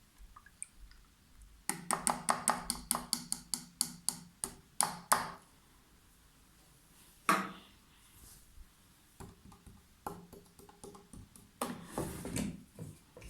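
Beko washing machine control panel giving a quick run of about a dozen short clicking beeps as its settings are stepped through, then a couple of single clicks later on.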